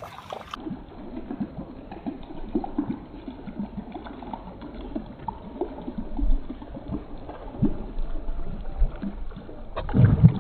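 Water lapping and gurgling in small irregular splashes against a small boat's hull. Near the end comes a sudden louder splash as a giant snakehead (toman) strikes the lure close beside the boat.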